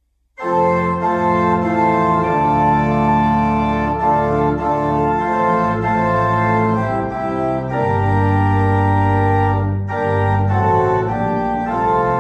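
Organ playing slow sustained chords, the held notes changing every second or two; it comes in suddenly out of silence about half a second in.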